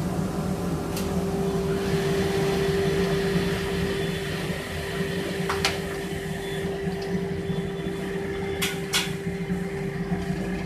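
Bag-type workshop dust collector's blower running steadily at full speed with an even hum. A few sharp knocks come over it as pine boards are laid on the saw table.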